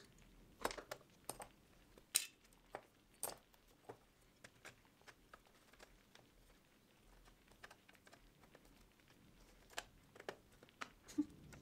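Irregular light clicks and taps of hand work at a stained-glass bench, about a dozen scattered through, the sharpest around two and three seconds in.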